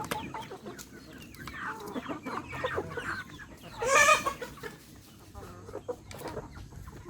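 Chickens clucking, with one louder, higher call about four seconds in.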